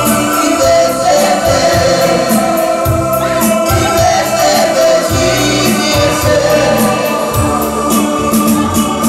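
Loud dance music with singing over a steady beat and a bass line.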